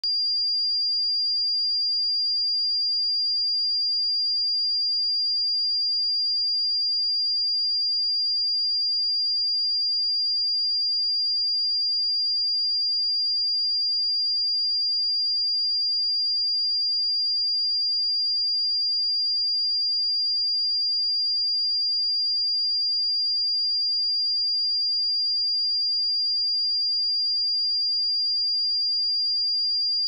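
A pure 4797 Hz sine-wave test tone, one steady high-pitched whistle-like pitch held unchanged at constant level.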